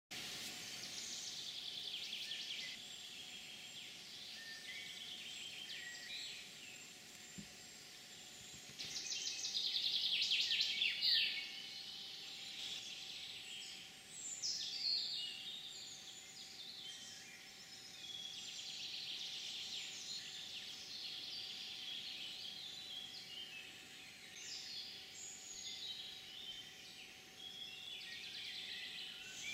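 Several wild birds singing in woodland, with chirps and trilled phrases overlapping throughout; the loudest is a rapid trill about nine to eleven seconds in. A faint steady hum sits underneath.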